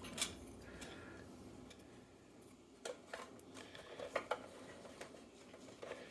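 Faint, scattered clicks and taps of plastic parts being handled and fitted together while an AeroGarden Bounty's pump assembly is put back together, with a few quick clicks close together near the end.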